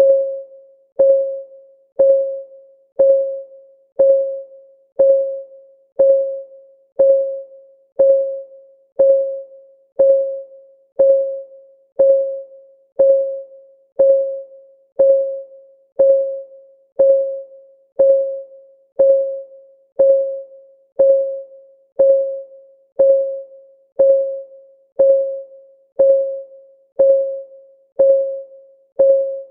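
Countdown timer's clock-ticking sound effect: one short, pitched tick every second, each dying away quickly, perfectly regular.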